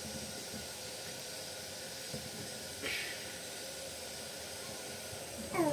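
Steady background hiss of the recording's room tone, with one brief soft rustle about three seconds in.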